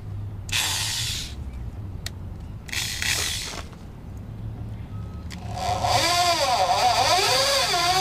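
Corded electric drill boring into a rivet: two short grinding bursts, then a longer, louder run from about five and a half seconds in, its motor whine wavering up and down in pitch as speed and load change. The bit is too small to get the rivet out.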